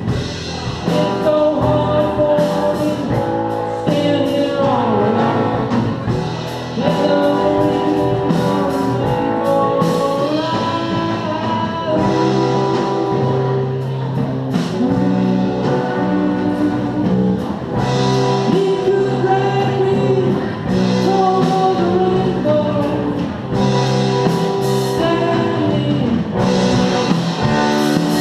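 Live rock cover band playing a song: singing over electric guitars and drums with cymbals.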